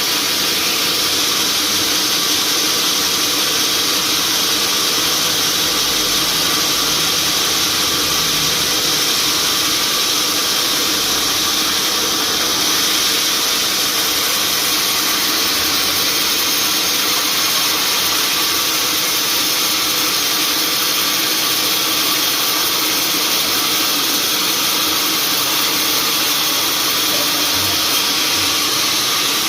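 Sawmill machinery running steadily, a constant, unchanging mechanical noise.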